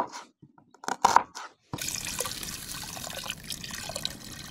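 A couple of knife knocks on a cutting board, then, from about a second and a half in, a steady stream of water poured from a kettle into a cast-iron pot of cut potatoes and onion.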